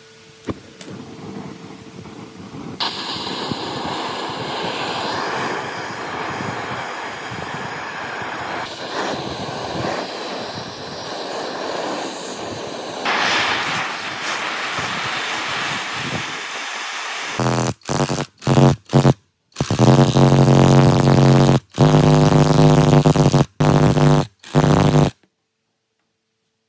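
Oxy-acetylene torch flame hissing steadily as it heats a rusted-on pulley, starting about three seconds in. From about two-thirds through, an electric impact wrench runs in several short loud bursts, driving the gear puller's screw to draw the pulley off the motor shaft.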